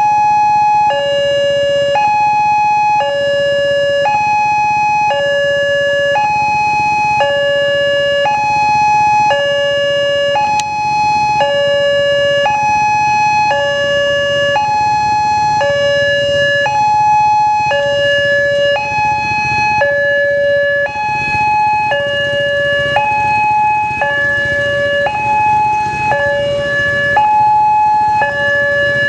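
Railway level-crossing warning alarm sounding a steady two-tone cycle, a higher tone and a lower tone alternating about once a second. A rushing noise grows in underneath about two-thirds of the way through.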